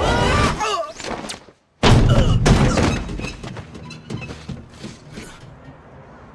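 Falling sweeping tones, then a moment of silence. About two seconds in a man's body slams onto asphalt with a loud, heavy thud, followed by a second, smaller impact.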